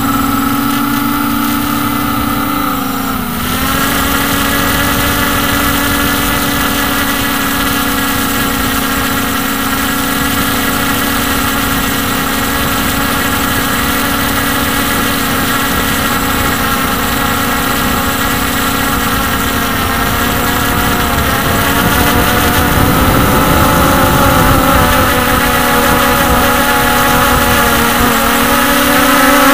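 Hubsan X4 H501s quadcopter's brushless motors and propellers whining in flight, heard up close from a camera on the drone: a steady buzz of several pitches that dips about three seconds in, then holds steady and grows a little louder in the last third.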